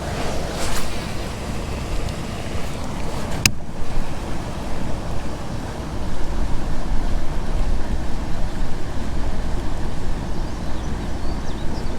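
Steady rush of wind buffeting the microphone over moving water, with a single sharp click about three and a half seconds in; the rush grows louder from about halfway through.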